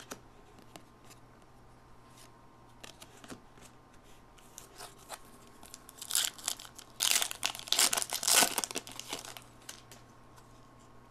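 Wrapper of a Topps football card pack being torn open and crinkled by hand: a loud flurry of crinkling and tearing from a little past the middle for about three seconds, after a few light handling ticks.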